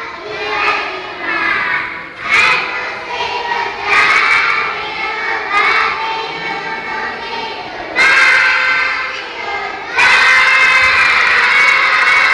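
A group of young children singing loudly together into stage microphones, in phrases that swell about eight seconds in and end on a long, loud held stretch.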